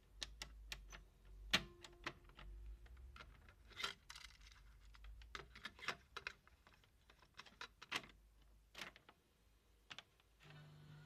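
Irregular sharp clicks and clacks of the push-buttons and switches on a Grundig TSC 350 receiver-cassette unit being worked by hand, a dozen or more over several seconds. Near the end a steady low hum comes in.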